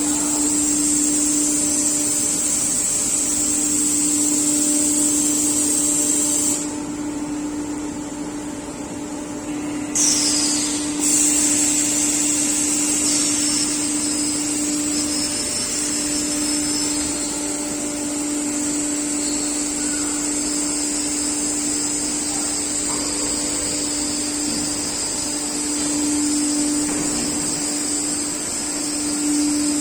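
CNC router spindle running at speed and cutting panels: a steady whine with a loud hiss of cutting and suction over it. The hiss drops away for a few seconds about a third of the way in, then returns.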